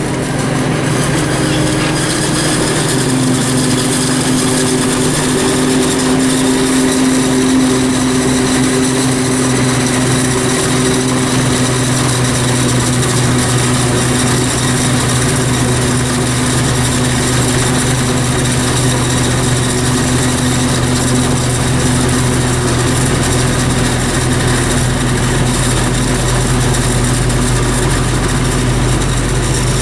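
Farm machinery engines running steadily, a hum with a high whine on top. The pitch steps down slightly a few seconds in, and a deeper low rumble builds over the last third.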